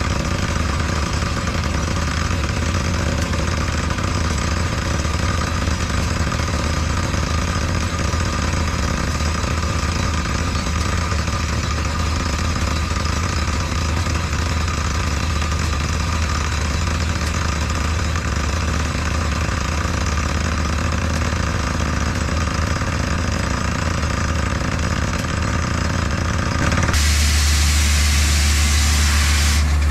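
Engine of a truck-mounted borewell drilling rig running steadily. Near the end it gets louder and a loud rushing hiss joins it.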